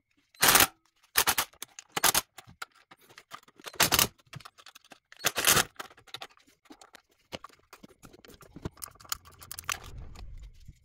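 Cordless impact driver with a Torx T30 bit, run in five short bursts to crack loose the bolts on an engine oil cooler, followed by faint handling noises near the end.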